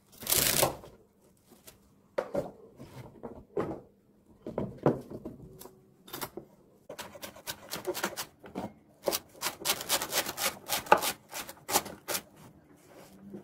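Chef's knife chopping celery on a cutting board: a brief rustle at the start as the stalks are handled, scattered chops, then a quick, uneven run of chops from about halfway through.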